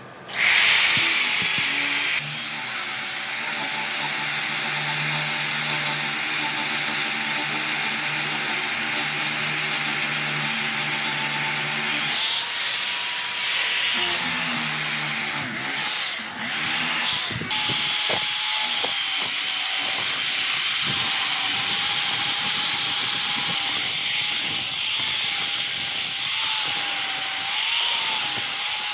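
Corded electric hand drill with a wide boring bit drilling into a wooden stump, its motor whining steadily under load. It starts abruptly just after the beginning, and the whine shifts in pitch a few times, with a brief dip in loudness a little past the middle.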